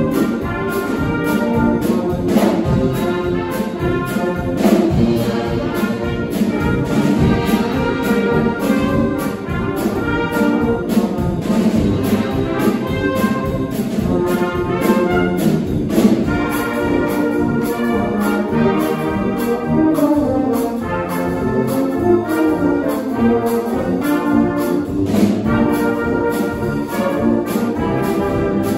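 Brass band playing live, cornets, trombones and tuba over a drum kit, with the drums striking steadily throughout.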